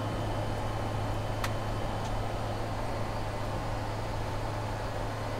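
Steady flight-deck noise of an Avro RJ100 climbing: airflow and its four Honeywell LF507 turbofans as an even rush, under a steady low hum. A single sharp click sounds about one and a half seconds in.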